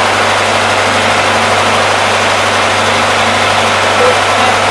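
Biogas-fuelled engine generator set running steadily, a loud continuous drone with a constant low hum underneath. The set is turning out 50 Hz power.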